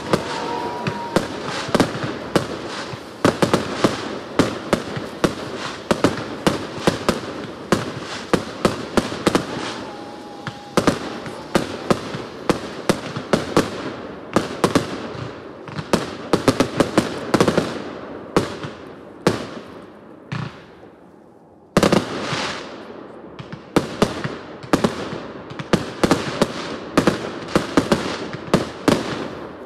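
Professional fireworks display: aerial shells launching and bursting in quick succession, a dense run of sharp bangs and crackles several a second. About twenty seconds in the bangs thin out and fade, then start again suddenly and loudly.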